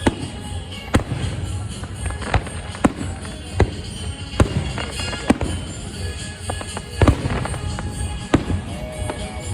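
Fireworks going off: about a dozen sharp bangs at irregular intervals, roughly one a second, the loudest about seven seconds in, over a steady low rumble.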